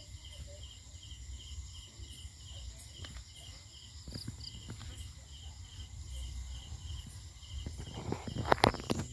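Crickets chirping about twice a second over a steady high insect trill, with a low rumble underneath. Near the end come a few loud sharp knocks or scuffs.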